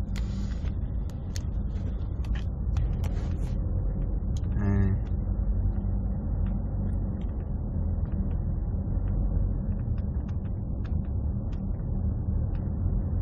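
Steady low rumble of a car's engine and road noise heard inside the cabin, with scattered light clicks and a short hummed vocal sound about five seconds in.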